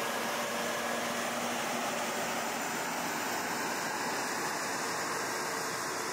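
Semi truck hauling a wind-turbine blade trailer as it moves past: a steady, even rush of engine and road noise, with a faint hum that fades about two and a half seconds in.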